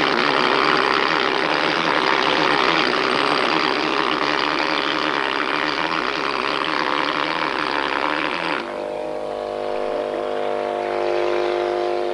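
Air-powered stone-working tool running hard against a granite block: a loud, dense, steady noise. About three-quarters of the way through it changes to a somewhat quieter, steadier sound with several held tones.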